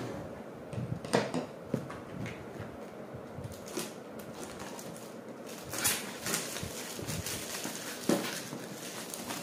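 Handling noise from a shrink-wrapped cardboard product box being turned in the hands: a few knocks and plastic crinkles, the sharpest about a second in, near the middle and near the end.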